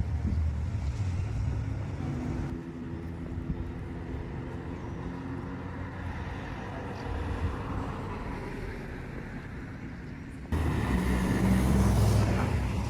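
Low, steady rumble of engines and road traffic outdoors. The sound changes abruptly twice, about two and a half seconds in and again near the end, where it grows louder.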